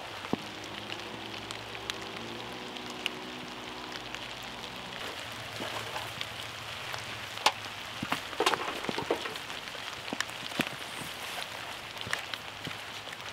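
Steady rain falling, with scattered sharp taps of drops. A faint low hum runs under it and stops about five seconds in, after which there are footsteps through wet undergrowth.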